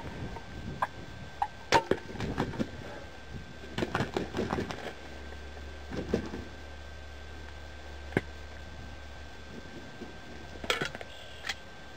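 Bow shot at a wild turkey: a sharp snap about two seconds in, then the turkey's wings flapping hard as it leaps and flies across the grass. Scattered sharp clicks and knocks follow, one very sharp about eight seconds in.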